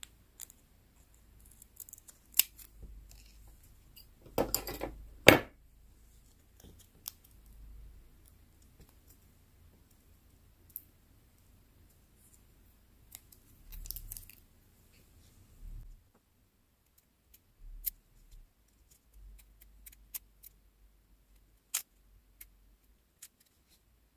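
Small scissors snipping through a piece of printed sticker paper, with a quick run of cuts about four to five seconds in, the loudest sound. Scattered light clicks and soft paper handling follow as the cut-out is pressed onto a tiny notebook page.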